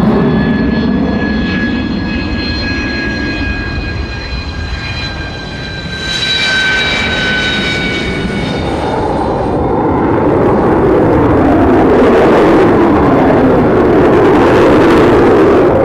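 Sukhoi Su-57 fighter's jet engines in flight: a high whine of several tones falls slowly in pitch over the first half. A broad jet roar then swells and stays loud through the second half.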